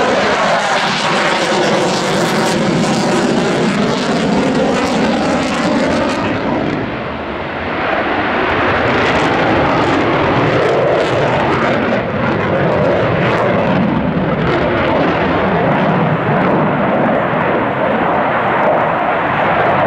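Dassault Rafale fighter jet's twin Snecma M88 turbofan engines, running loud and steady through a display pass. The pitch sweeps in the first few seconds, and the loudness dips briefly about seven seconds in.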